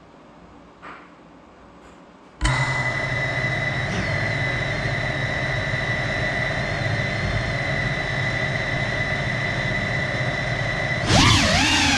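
GEPRC CineLog35 FPV cinewhoop's brushless motors and ducted propellers: after a couple of seconds of quiet they spin up suddenly, about two and a half seconds in, to a steady high idle whine. Near the end the pitch swings up and wobbles as the throttle is raised for takeoff.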